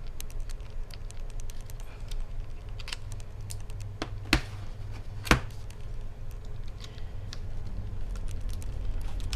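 Small clicks and taps of fingers and tools working inside an opened Asus VivoBook laptop while the battery and speaker cable connectors are pulled from the motherboard, with two sharper clicks about four and five seconds in. A low steady hum runs underneath.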